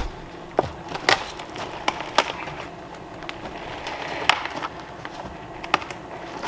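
Irregular sharp knocks and clatter of wood: a 2x6 form board being struck and worked loose from its stakes.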